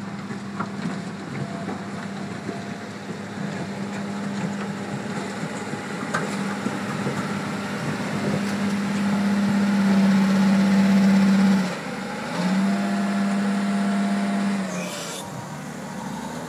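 Caterpillar 950F wheel loader's diesel engine working under load while it pushes and lifts earth. The engine note rises and grows louder, drops off abruptly about twelve seconds in, picks up strongly again, then eases near the end.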